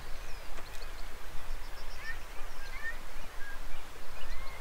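Birds chirping and whistling: many short notes that bend up and down, some overlapping, over a steady low rumble.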